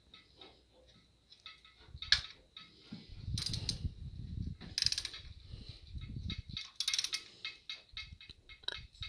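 Socket ratchet clicking in quick runs as it is worked back and forth on adapter-plate bolts, starting about two seconds in, with low knocks mixed in.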